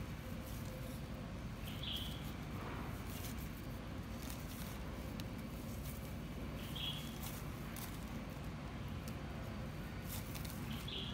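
Plastic bag rustling and crinkling as hands knead and squeeze a crumbly bait of bread and pig-feed bran inside it, with scattered small crackles over a low steady background rumble. A short high chirp sounds three times, a few seconds apart.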